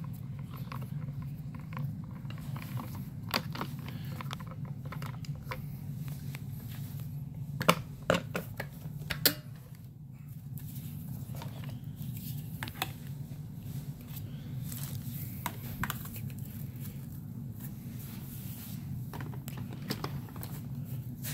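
Scattered clicks and knocks of a plastic upright vacuum's parts being handled, with a few sharper knocks about eight to nine seconds in, over a steady low hum.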